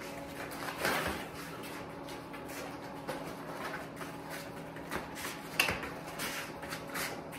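Scattered soft taps and scuffs of a person's footsteps and a young dog's paws moving across the floor, over a steady low hum in the room.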